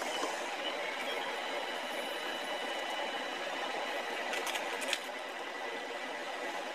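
A small plastic noodle seasoning packet crinkling as it is torn open, a few brief crackles about four and a half seconds in, over a steady kitchen noise with faint high whining tones.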